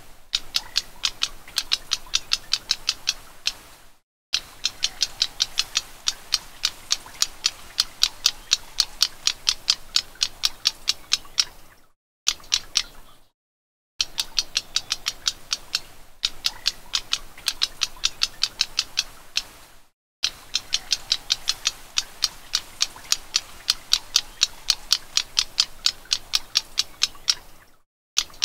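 Black-browed reed warbler calling: fast runs of dry ticking notes, several a second, in bouts of a few seconds broken by brief silences.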